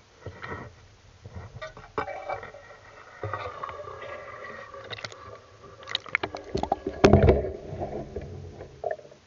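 Water sloshing at the surface mixed with irregular clicks and knocks of handling, loudest in a cluster of knocks about seven seconds in.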